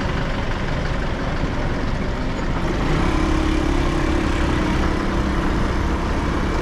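Motor scooter running while being ridden, heard from the rider's seat as a steady engine and road noise; a steady hum comes in about three seconds in as the loudness rises slightly.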